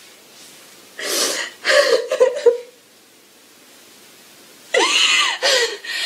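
Gasping sobs and wavering cries of grief, in two bouts about a second in and near the end, with a quiet pause between.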